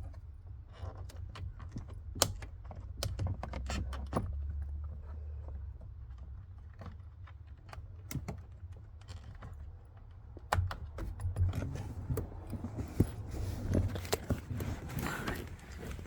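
Irregular small clicks, taps and light metallic rattles of hand tools and small parts being handled. The clicks come in loose clusters, with a busier stretch in the last few seconds.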